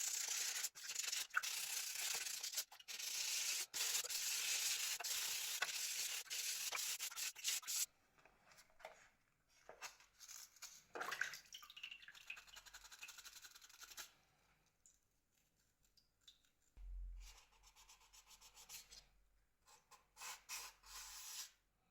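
Sandpaper rubbing back and forth over dried dent filler on a plastic phone shell, in steady strokes for about eight seconds. It then goes on in sparser, quieter strokes and dies away to a few faint touches.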